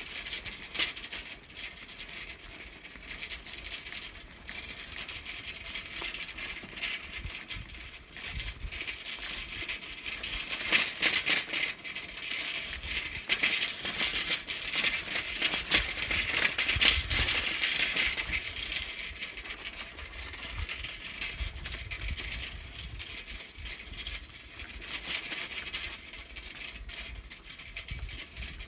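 Bicycle rattling and clicking as it rides over a bumpy dirt track, with occasional low rumbles; the rattling is heaviest about halfway through.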